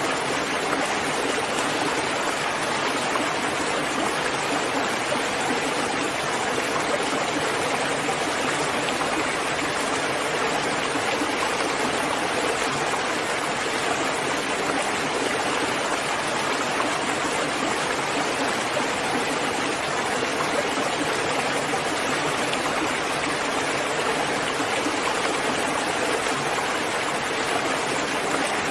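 Steady heavy rain, an even unbroken hiss of falling water with no separate drops or thunder standing out.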